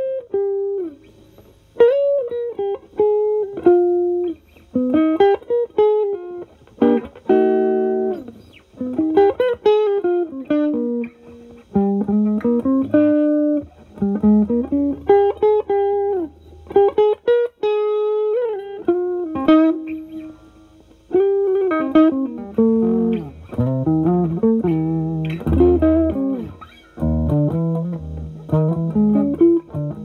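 Electric guitar (Gibson SG with humbuckers) played through an Ibanez TS9DX Turbo Tube Screamer overdrive in HOT mode into a Marshall Valvestate amp's clean channel. It plays improvised single-note lead phrases with string bends and short pauses, with lower notes mixed in over the last several seconds.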